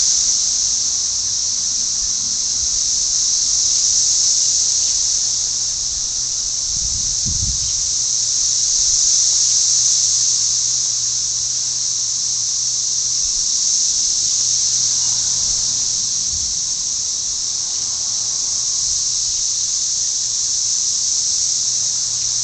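Periodical cicadas in a massed chorus: a loud, dense, high-pitched drone that slowly swells and fades every few seconds.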